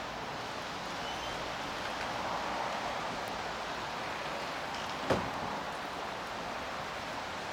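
Steady outdoor background hiss, with one sharp click about five seconds in.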